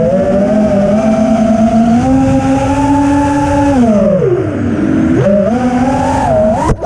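FPV racing quadcopter's Hyperlite 2207 1922kv brushless motors and propellers whining at high throttle. The pitch drops low about four seconds in as the quad rolls over, then climbs back up as it levels out. The sound cuts out briefly near the end.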